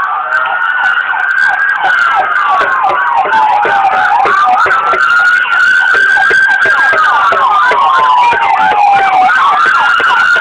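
A siren wailing, its pitch slowly rising, holding, then falling in cycles of about four and a half seconds, with rapid, quicker up-and-down sweeps layered over it.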